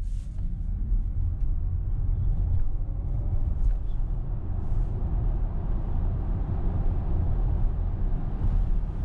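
Cabin noise of a Volkswagen ID.4 electric SUV on winter tyres under full-pedal acceleration from standstill to 100 km/h: a steady low rumble of tyres and road, with no engine note.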